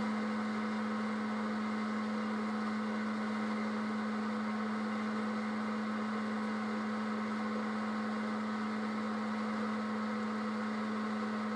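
Electric Wear-Ever Popcorn Pumper running with a steady hum as it heats up, before the kernels start to pop.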